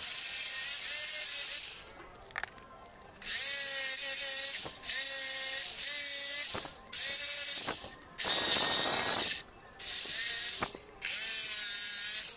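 Corded jigsaw cutting short slots into a wooden board in about seven bursts of one to two seconds each, the motor starting and stopping as the trigger is pulled and released. Its pitch wavers as the blade bites.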